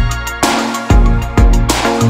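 Electronic music with heavy bass notes and two sharp drum hits.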